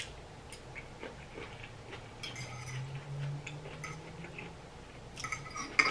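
Mouth noises of a person eating ramen noodles and vegetables, with a long, low closed-mouth 'mm' of enjoyment in the middle. Light clicks and scrapes of a metal fork on the plate come twice, briefly.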